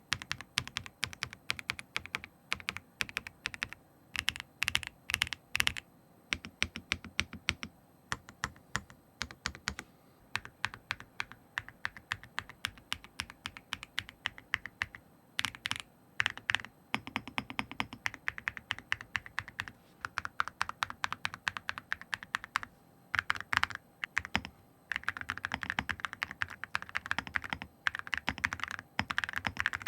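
Typing on a mechanical keyboard: steady runs of quick key clicks and clacks. It is a sound test setting Cerakey ceramic keycaps, claimed to give a deeper, more rounded thock, against ABS double-shot plastic keycaps.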